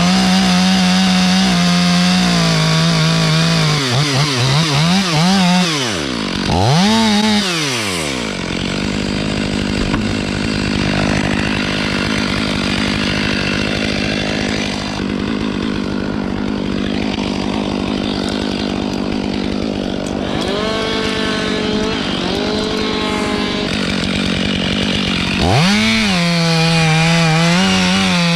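Two-stroke chainsaw running at high revs; its pitch dips and swoops up and down several times in the first eight seconds as the throttle is eased and blipped. It then runs lower and rougher for most of the middle, and revs back up to full speed near the end.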